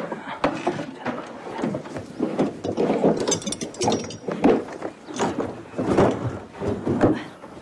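Irregular knocks, clunks and clicks of objects and furniture being handled as someone rummages through belongings, with a quick mechanical rattle about three seconds in.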